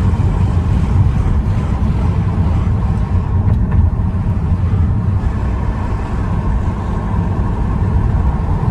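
1985 Cadillac DeVille's HT4100 V8 idling steadily with the air conditioning switched on: an even low rumble.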